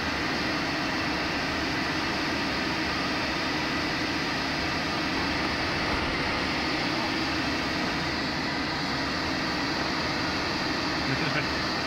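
Steady rush and drone inside a glider's cockpit while it is towed aloft behind a tow plane, holding an even level without a break.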